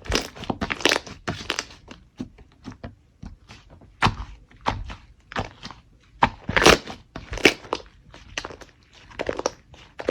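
Slime being squeezed and pressed by hand, giving irregular crunchy crackles and pops, with louder clusters of crunches about four seconds in, around six to seven seconds, and near the end.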